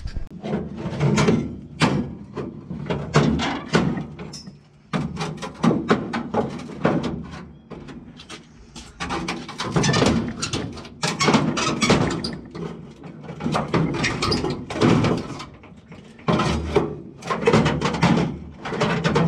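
Rusted sheet-metal floor of a 1936 Ford coupe being ripped out: a long run of irregular metal bangs, thuds and scraping, with two brief lulls.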